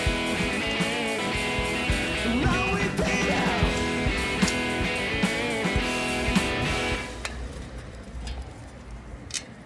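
Rock music with guitar and drums as backing track; it drops away sharply about seven seconds in, leaving a much quieter passage.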